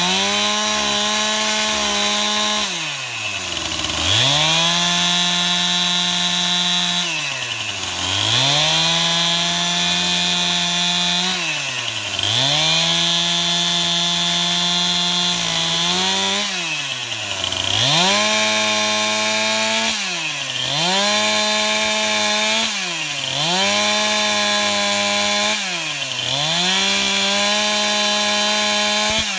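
STIHL MS 271 Farm Boss two-stroke chainsaw cutting into a log at full throttle with a freshly sharpened chain. The revs drop briefly and climb back about every three to four seconds as it takes repeated cuts.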